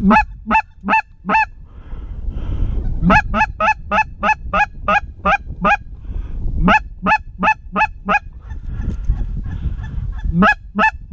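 Goose call blown hard in runs of quick honks and clucks, about two to three notes a second, with short pauses between runs: calling to geese.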